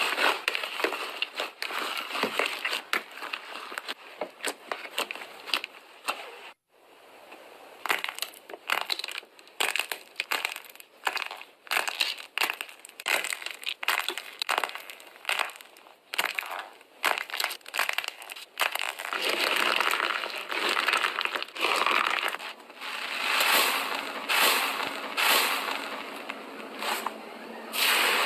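Slime being squeezed and worked by hand: a rapid run of sticky clicks and pops, breaking off briefly about six seconds in and growing denser and more continuous in the second half.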